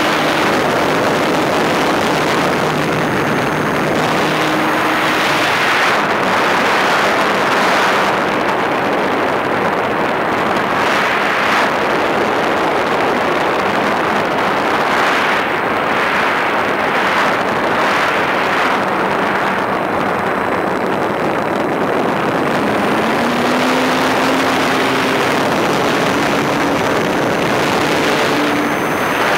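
Air rushing over the onboard microphone of a Multiplex EasyStar RC glider in flight, swelling and easing. Under it runs the faint hum of its brushless motor and pusher propeller, which changes pitch with the throttle and rises in the last few seconds.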